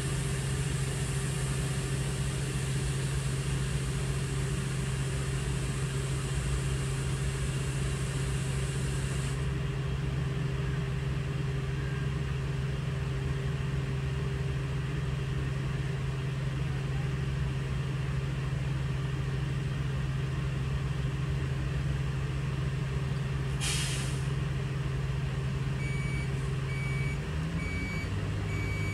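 Heavy diesel truck engine running steadily. A short, sharp air-brake hiss comes about 24 seconds in. Near the end a backup alarm starts beeping a little faster than once a second, and the engine note changes as the truck begins to reverse.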